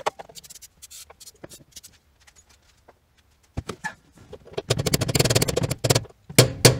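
A screwdriver being tapped against the Mustang fuel pump's locking ring to turn it loose. A sharp knock comes first, then scattered light taps. A fast run of rattling taps follows past the middle, and evenly spaced harder strikes start near the end.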